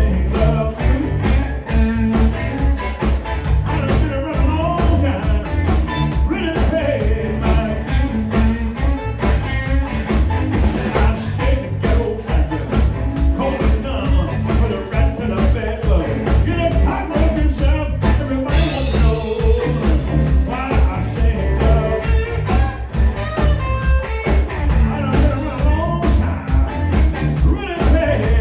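Live blues band playing a song, with a steady drum and bass beat under wavering lead melody lines.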